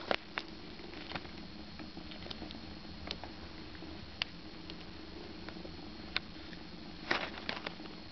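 Scattered light taps and scratches of a tabby kitten pawing and clawing at denim jeans close to the microphone, with a brief flurry about seven seconds in, over a faint steady hiss.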